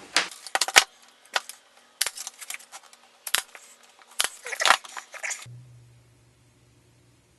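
23-gauge pin nailer firing brads into a wooden frame: a series of sharp snaps, several close together. They stop about five and a half seconds in, leaving a faint low hum.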